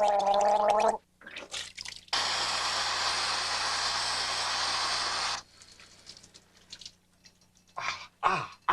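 A man gargling, the wavering gurgle stopping about a second in, then a bathroom tap running in a steady rush for about three seconds before it is shut off abruptly. A few brief vocal noises near the end.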